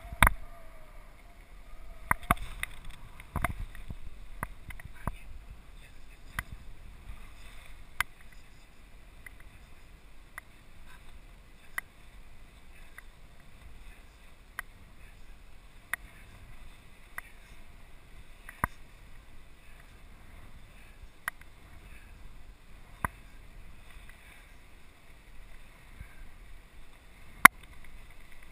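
Airflow rushing past a paraglider pilot and his harness-mounted camera during the acro helicopter manoeuvre, a steady low rush. Sharp clicks break it every second or two, the loudest right at the start and again near the end.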